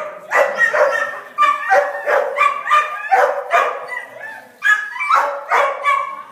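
Dog barking over and over in a steady run, about three barks a second.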